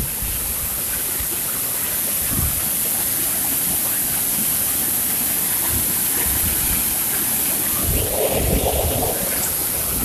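Waterfall pouring into a pool: a steady rush of falling and churning water. A few low buffets hit the microphone, the strongest about eight seconds in.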